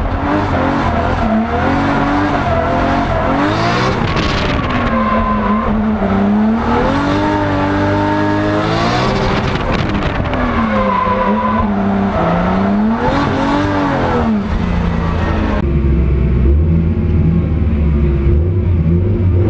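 Drift car heard from inside the cabin, its engine revving up and down again and again through a drift run over the hiss of sliding tyres. About fifteen seconds in, the sound changes abruptly to a lower, steadier engine rumble at low speed.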